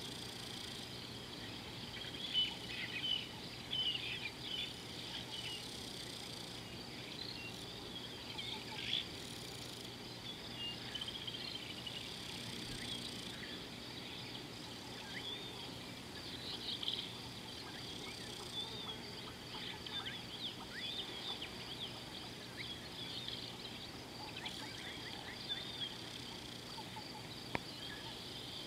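A steady high insect trill, with frequent short bird chirps and whistles over it, most often around 2 to 5 seconds in, near 9 seconds and around 17 and 20 seconds in.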